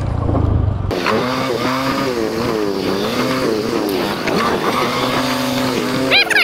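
Small motorbike engine running while ridden, its pitch rising and falling again and again with the throttle, over a steady rush of wind noise. A brief, sharp rising squeal comes near the end.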